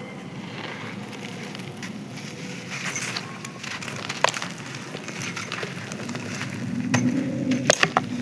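Dry sand-cement crust crunching and crumbling, with scattered crisp cracks and a few sharp snaps near the end.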